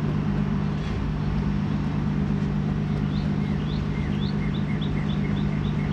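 Steady humming drone of construction machinery, with a run of faint, quick high chirps, about four a second, in the second half.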